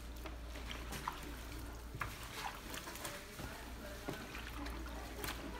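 Wet squishing and sloshing as lime-cured shrimp, sliced cucumber and red onion are mixed together in their lime juice, with a few short clicks about once a second over a steady low hum.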